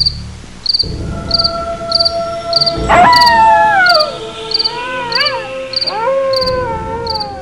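Horror intro sound effects: cricket chirps repeating evenly over a low drone, a sudden hit about three seconds in, then long howl-like wails that slide downward, waver, and fall again.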